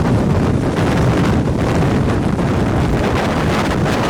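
Strong tornado winds blasting across a camera microphone: a loud, steady rumble of wind noise.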